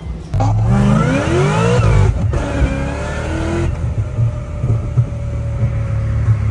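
High-horsepower V8 performance car launching into a full-throttle pull in a roll race. The engine note jumps up suddenly, climbs in pitch, dips briefly at a gear change about two seconds in, then climbs again and holds a hard pull.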